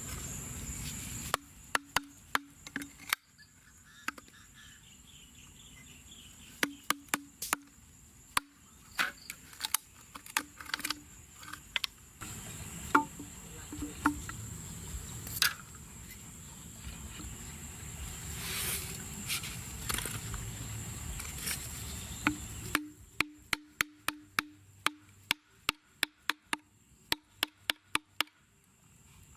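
A series of sharp knocks and clicks, scattered and irregular at first, then a quick, even run of them near the end.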